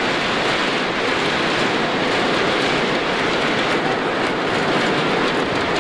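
Arena crowd beating inflatable thundersticks together: a dense, steady clatter of many rapid clacks.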